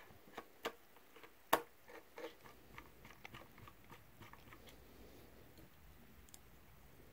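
Faint clicks and ticks of a precision screwdriver working small screws into a drone's body shell, the screws being started before they are tightened. The clicks come thickly for the first four and a half seconds, with one sharper click about one and a half seconds in, then thin out.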